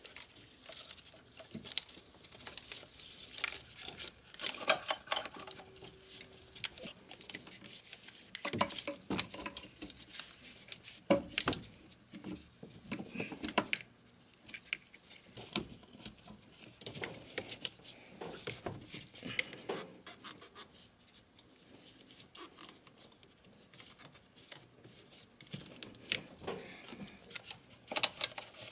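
Irregular light clicks, taps and rustling from gloved hands handling the plastic wiring harness, connectors and metal fittings in a Mercedes Sprinter engine bay, with the engine off.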